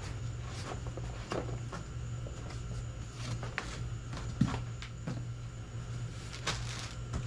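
Packaging and small parts being handled in a cardboard box: scattered light knocks, taps and rustles, over a steady low hum.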